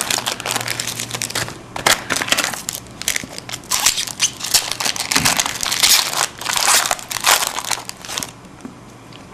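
Trading-card pack wrappers crinkling and crumpling as hockey card packs are torn open and handled, a dense run of irregular crackling that stops about eight seconds in.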